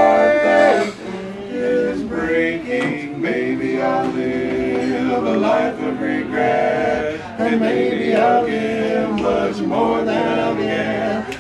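Four men singing a cappella in harmony, unaccompanied male voices holding long chords and moving between them together.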